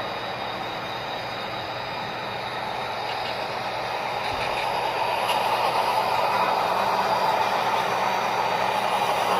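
Diesel engine sound from the Soundtraxx Tsunami sound decoders in HO-scale EMD tunnel-motor model locomotives, played through the models' small speakers. It runs steadily and grows gradually louder as the locomotives approach.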